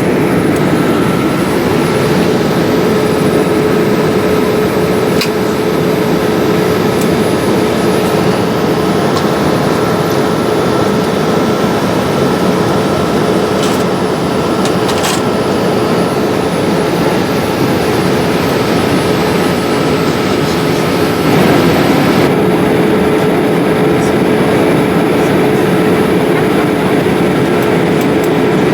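Jet airliner cabin noise inside a Boeing 787-8: its Rolls-Royce Trent 1000 engines and the airflow past the fuselage make a steady rushing noise with a constant hum underneath. The sound shifts slightly about two thirds of the way through.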